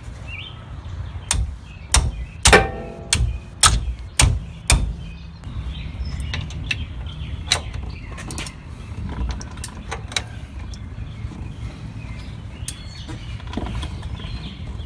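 Hammer striking the handle of a wrench to break loose a driveshaft bolt: about seven sharp metallic strikes with a short ring over the first five seconds. Then lighter scattered clicks as the bolt is worked with a ratchet wrench.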